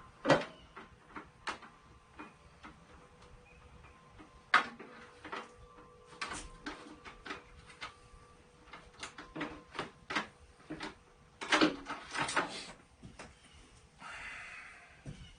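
Irregular knocks and clicks of a benchtop planer's tray and parts being handled and fitted, the loudest knocks just after the start, about four and a half seconds in and around twelve seconds in, with a short scrape near the end. The planer's motor is not running.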